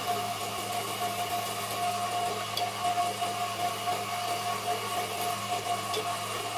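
Wood lathe running steadily: a constant machine hum with a rough, uneven noise over it.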